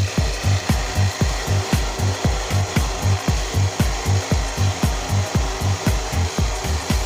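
Homemade scroll saw, driven by a 24 V DC electric-bike motor, sawing wood with a steady reciprocating rhythm of about three strokes a second, each stroke a low thump over a rasping cut.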